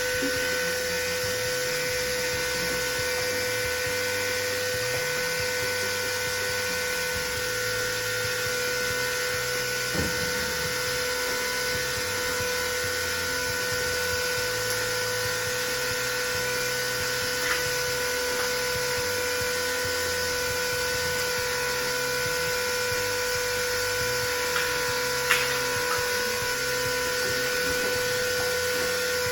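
Small electric motor of a transfer pump running steadily with an even whine as it pumps RV antifreeze into a tractor tire, with a few light clicks along the way.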